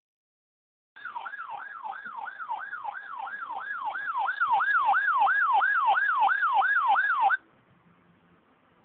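A weather radio sounds its siren-style alert alarm for a severe thunderstorm warning: a wailing tone sweeping down and back up a little over twice a second. It starts about a second in, grows louder midway and cuts off abruptly.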